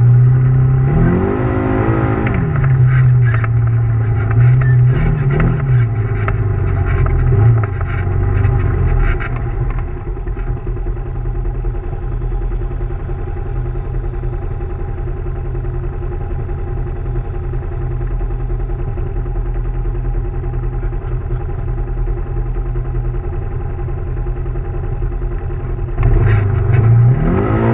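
Side-by-side UTV engine heard from inside the cab. It revs up and back down about a second in, blips again around five seconds, then idles steadily until it revs up again near the end.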